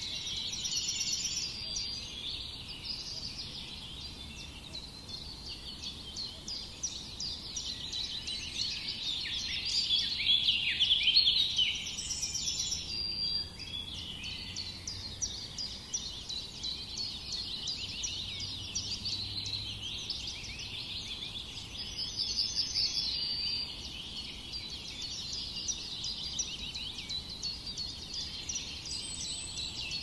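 A dense chorus of many small songbirds chirping and singing at once, loudest about ten to twelve seconds in.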